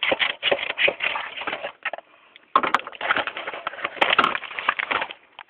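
Cardboard shipping box being opened: quick rough scraping and crunching of cardboard and packing tape, with a short pause about two seconds in.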